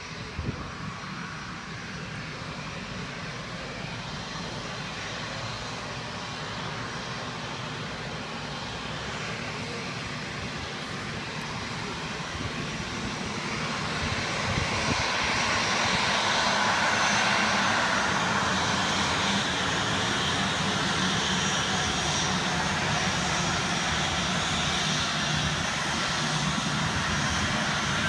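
Jet engines of a taxiing Sunwing Boeing 737, a steady rushing whine that grows louder about halfway through.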